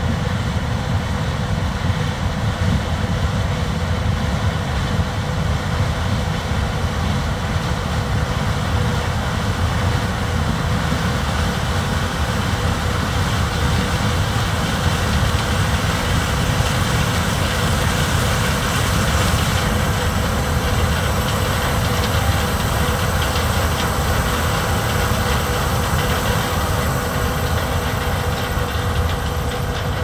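John Deere combine harvesting corn, running steadily under load: a low rumble with a steady whine over it, growing slightly louder as the machine comes closer.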